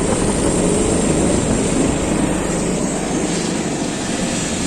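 Helicopter rotor and engine running close by: a loud, steady noise that eases slightly a little after halfway.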